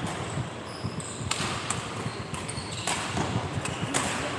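Badminton rally: rackets striking the shuttlecock in several sharp cracks, with short high squeaks of shoes on the court floor.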